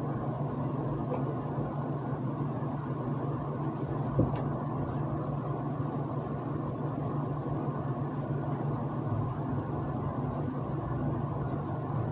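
Steady low hum with a faint hiss of room background noise, with one short click about four seconds in.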